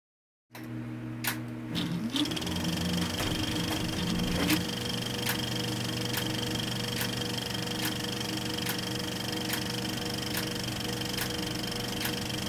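A steady mechanical hum with a sharp click repeating a little more than once a second, starting suddenly about half a second in.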